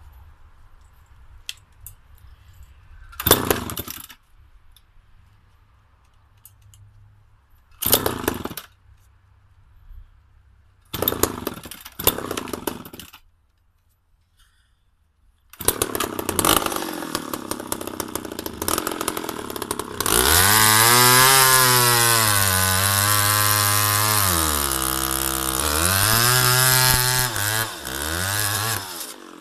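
McCulloch Pro Mac 700 two-stroke chainsaw being started: three short bursts before the engine catches and keeps running. About five seconds later it is revved hard, the engine speed sagging and recovering once before falling back near the end.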